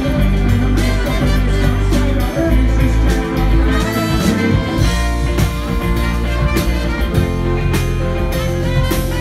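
Live rock band playing, amplified: electric guitar, bass guitar and drums, with a trumpet and saxophone horn section playing along.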